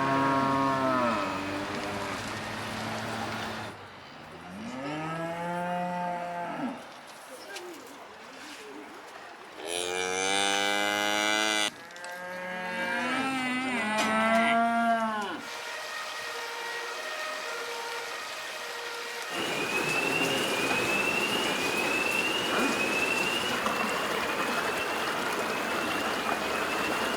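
Cattle mooing: several long, drawn-out calls, one after another. About two-thirds of the way through, a steady noise takes over, with a short high rising chirp repeating about once a second.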